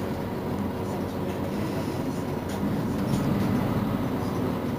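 Mercedes-Benz Citaro C2 city bus engine idling with a steady low hum while the bus stands at a stop. The hum swells slightly about three seconds in.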